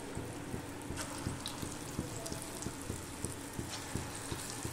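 Hot oil in a kadhai sizzling and crackling as balls of ground urad dal batter are dropped in one by one to deep-fry as pakoras. The hiss brightens about a second in and again near the end.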